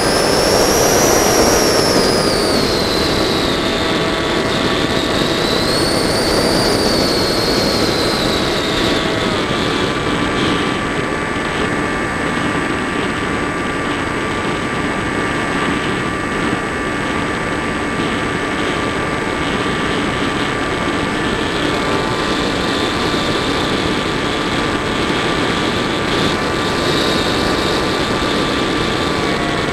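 Electric motor and propeller of an FPV model plane heard through its onboard camera, running continuously with rushing airflow noise. A high whine rises and falls in pitch over the first eight seconds or so, the tone shifts at about nine seconds, and after that it stays steady.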